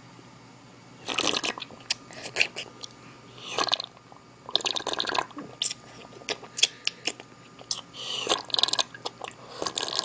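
A boy slurping liquid from a bowl with his lips at the surface: after a quiet first second, a run of short, noisy sucks with sharp wet clicks between them, coming faster in the second half.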